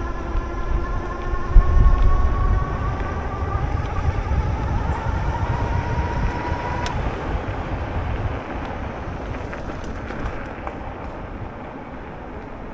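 Fat-tire e-bike rolling on asphalt on Kenda slick tires: an electric motor whine rising slightly in pitch for the first seven seconds or so, then cutting off, over a steady low wind rumble on the microphone. The slick tires give no tire hum, only a light road hiss.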